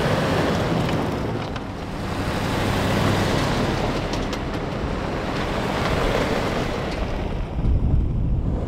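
Wind buffeting the microphone in open country: a rushing noise with a low rumble that swells and eases.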